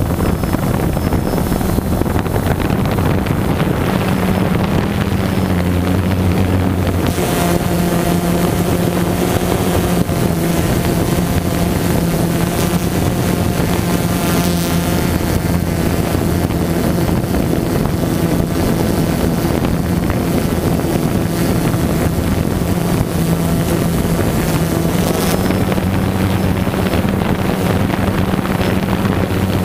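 DJI Phantom 2 quadcopter hovering: its four motors and propellers make a steady hum, heard through the drone's own onboard camera, with wind buffeting the microphone. The hum shifts slightly in pitch a few times as the drone holds its position.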